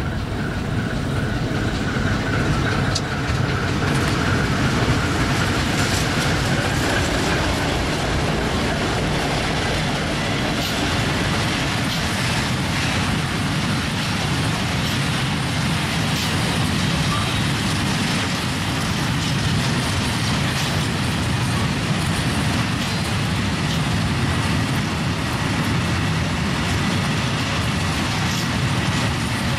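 Freight train of loaded tank wagons rolling past close by, a steady heavy rumble of wheels on rail with scattered knocks, hauled by a TEM2 diesel shunting locomotive whose engine is heard as it passes in the first several seconds.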